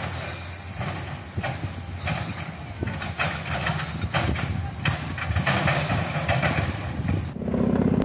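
Burning brush and pine litter crackling and popping in a forest fire, with a low steady rumble underneath. Near the end it gives way abruptly to a steady low drone.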